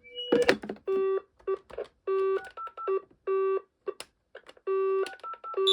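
A string of short electronic beeping tones over a telephone line, each a fraction of a second long with uneven gaps between them and one longer beep near the end, with a few clicks among them.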